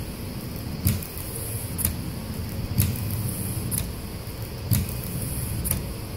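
Car windshield wipers sweeping across dry glass, heard from inside the cabin. Each sweep brings a short knock, about once a second in a steady rhythm, over a continuous rubbing noise.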